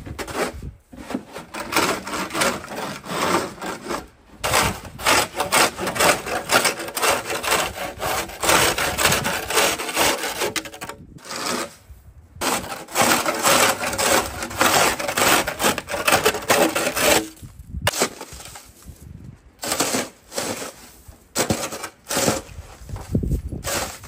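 Snow shovel scraping over snow-covered wooden deck boards in long pushes, broken by brief pauses; near the end it scrapes and scoops snow beside the steps.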